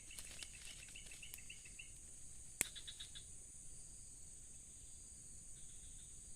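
Steady high-pitched drone of insects, crickets or cicadas, with a fast repeated chirping for the first two seconds. A single sharp click about two and a half seconds in, followed by a brief quick chirp.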